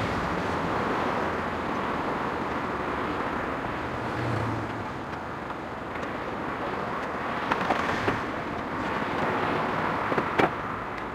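Steady road-vehicle noise from engines and passing traffic, with a few short sharp clicks about seven and a half to eight seconds in and twice more near the end.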